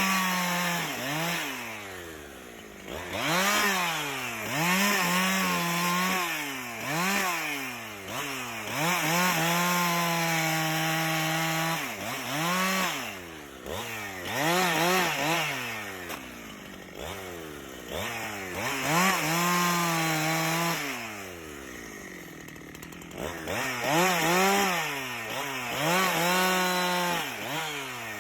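A power tool's motor cutting wood, its pitch dropping as it bogs under load and climbing back again and again, with steady stretches at full speed. It eases off briefly about three quarters of the way through.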